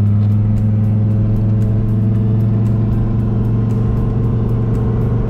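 2000 Dodge Viper GTS's 8.0-litre V10 running steadily on the move, heard from inside the cabin, its pitch holding even.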